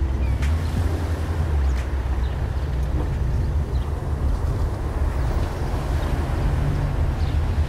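1969 Dodge Charger's engine running steadily as the car drives at an even speed: a low rumble with road noise.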